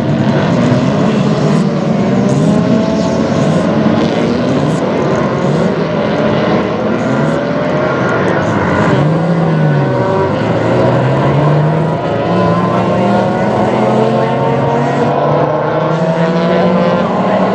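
A field of historic touring and muscle-car engines racing together, several engines heard at once. Their pitches rise and fall over and over as the cars accelerate and change gear.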